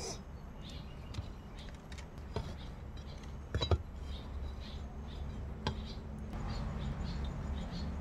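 A few light knocks and clicks as a plastic plant pot is handled, the loudest about halfway through, over a steady low hum with faint bird chirps.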